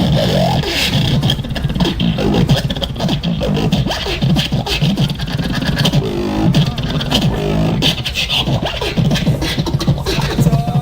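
Sound effects made with the mouth: beatboxing-style vocal percussion, rapid clicks and pops mixed with short pitched hums that bend up and down.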